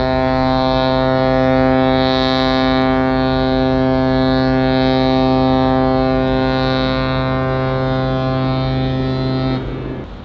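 An aircraft carrier's ship's whistle sounding one prolonged blast, a loud, deep, steady tone that starts abruptly and cuts off shortly before the end. This is the signal of a ship leaving its berth.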